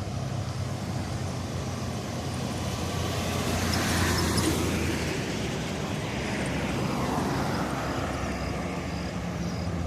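Road traffic: vehicles passing, their noise swelling about four seconds in and again near seven seconds, over a steady low engine hum.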